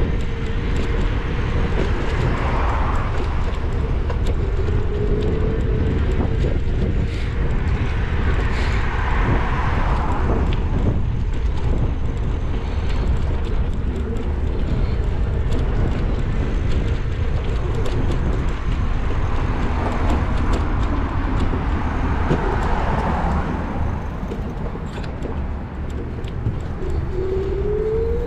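Car driving on a city street: steady road and engine rumble, with the sound of other traffic swelling and fading a few times. The engine tone rises in pitch near the end as the car speeds up.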